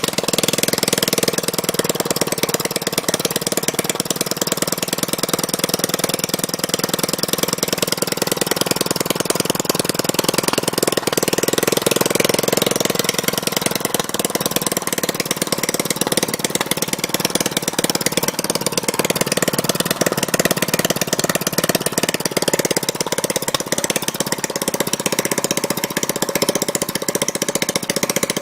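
Small gasoline engine running steadily at idle after repair, its carburetor cleaned and spark plug tested; it runs smoothly, which the mechanic takes as a sign it is okay.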